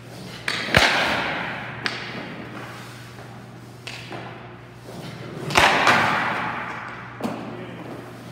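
Hockey pucks being shot and striking in an ice rink: about six sharp cracks and thuds, the loudest about a second in and again past the middle. Each one rings out in a long echo over a steady low hum.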